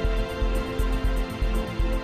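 Background music with a steady bass beat, about three beats a second, under sustained held tones.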